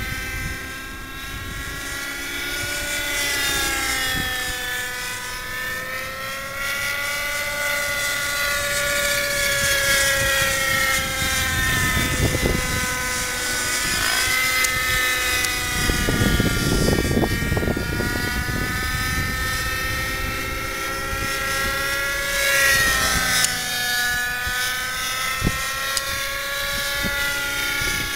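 X-Cell 90 radio-controlled helicopter in flight: its nitro glow engine and rotors whine steadily. The pitch slowly rises and falls as it manoeuvres overhead, with low rumbling patches around the middle.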